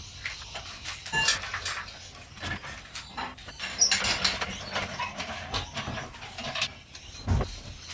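Irregular knocks, clanks and rattles of hands-on work with tools and parts, with a brief squeak about a second in and a dull thud near the end.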